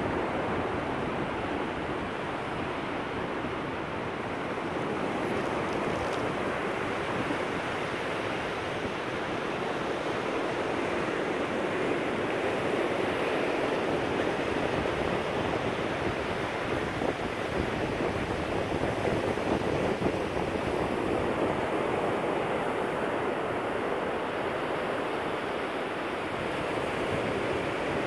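Ocean surf breaking on the beach: a steady rushing wash that swells and eases gently.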